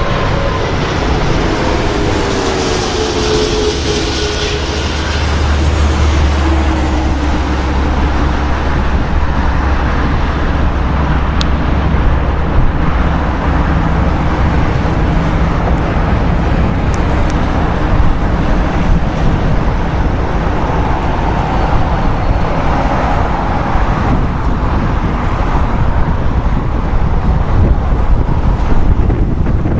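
Airbus A340-500 jet engines heard from a distance, a loud continuous rumble; in the first few seconds a whine falls in pitch, then the low rumble swells a little and holds steady.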